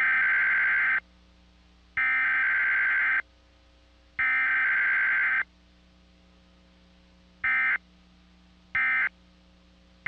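Emergency Alert System SAME digital data tones, a screechy, warbling data burst. Three long header bursts come about a second apart, then three short end-of-message bursts, the pattern of a Required Weekly Test sent with no attention signal.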